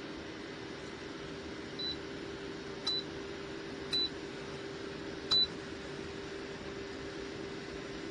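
Portable ceramic space heater's fan running with a steady whir and hum, while its control panel gives four short high beeps over a few seconds, the later three each led by a button click.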